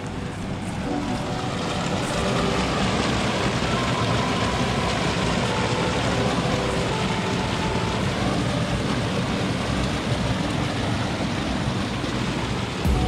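Rushing mountain river water, a dense steady roar that swells about two seconds in.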